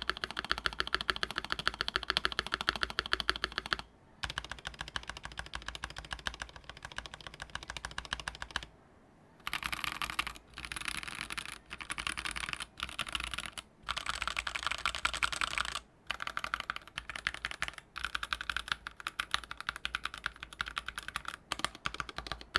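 Fast typing on a SAKA68 mechanical keyboard with a brass plate, stock Crink switches, GMK Minimal double-shot ABS keycaps and no case foam: a clacky rather than thocky key sound. The typing comes in stretches, with brief pauses about 4 and 9 seconds in.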